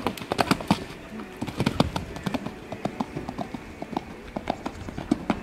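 Hoofbeats of a Selle Français mare cantering on arena sand, a quick uneven run of soft strikes, loudest in the first two seconds, then fainter as the horse moves away.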